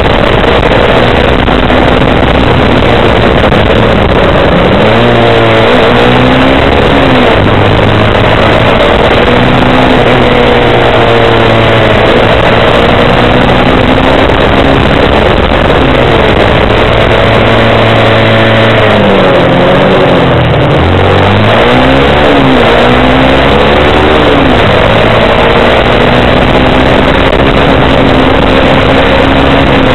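Kymco Quannon 125 motorcycle's single-cylinder engine heard on board while riding. Its pitch climbs and drops again and again as the bike accelerates and slows, over a steady loud rush of wind and road noise.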